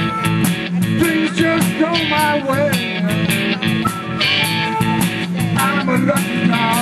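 Live electric blues band: amplified blues harmonica, cupped against a hand-held microphone, plays wavering, bent notes over electric guitar, bass and a steady drum beat.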